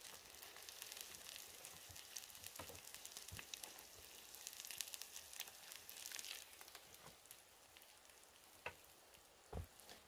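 Mussels grilling in their half-shells over a wood fire, their juices sizzling faintly with a crackling hiss. A few sharp knocks come from metal tongs against the shells and the grill rack.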